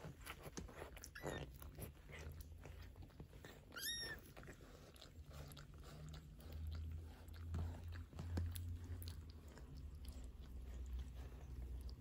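Two-week-old Maine Coon kittens with their mother: a short, high, rising kitten squeak about four seconds in and a fainter one near the first second, over many small wet clicks and a steady low rumble.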